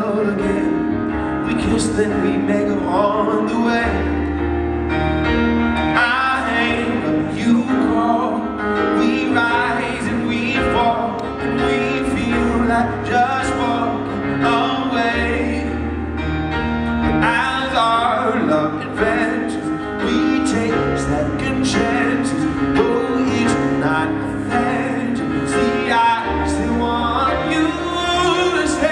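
A man singing a ballad while accompanying himself on a grand piano, long low piano notes held under the voice.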